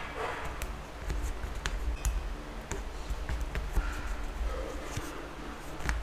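Fingers pressing and rubbing a strip of white tape onto a small leather piece: scattered light clicks and soft rubbing, over a low steady hum.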